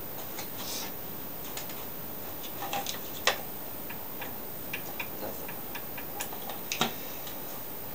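Irregular light clicks and taps from working the mower's ignition switch and cable connections, the loudest about three seconds in. The Craftsman mower's electric starter does not crank at all.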